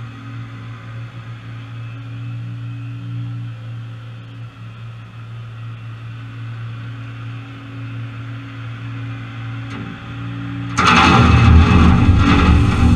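Massey Ferguson 2850 tractor engine running steadily as the loader comes alongside; about eleven seconds in, a bucketload of item 4 crushed stone pours from the front-end loader bucket into a dump trailer with a sudden loud rush and rattle of gravel.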